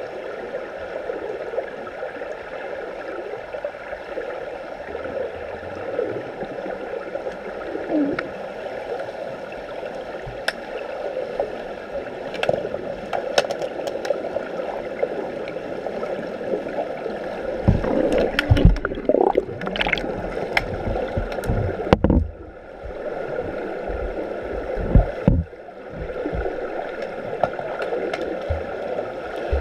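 Underwater hockey play heard from underwater: a steady muffled gurgling and bubbling of water churned by swimmers' fins and snorkel breathing, with scattered sharp clicks. Several heavy low thumps come in the second half.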